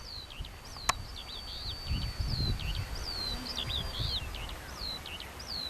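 Small birds chirping over and over in short, quick high notes, with a faint steady high whine under them for the first few seconds and low wind rumble on the microphone. A single sharp click about a second in.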